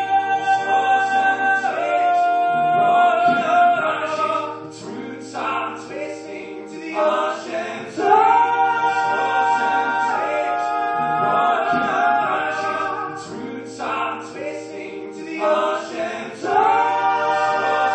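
Male voice singing long held notes into a vocal mic, over a steady acoustic guitar backing that plays on from a loop pedal while his strumming hand is off the strings.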